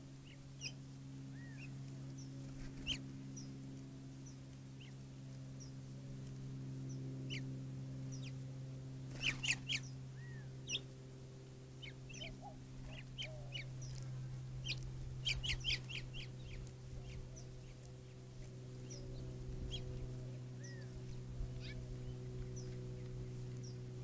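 Wild birds chirping and calling in short scattered notes, with two clusters of sharp clicks about ten and sixteen seconds in, over a steady low hum.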